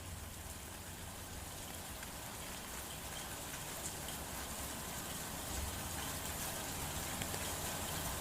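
Heavy rain falling steadily: an even hiss with scattered drop ticks and a low rumble underneath, slowly growing a little louder.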